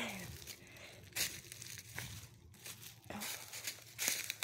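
Footsteps crunching through dry fallen leaves, pine needles and twigs on a woodland floor, several steps at roughly one a second.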